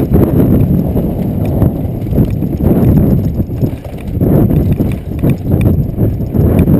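Mountain bike ridden fast down a dirt trail, heard through a GoPro: a constant rumble of tyres and wind with a dense clatter of knocks as the bike rattles over the bumps.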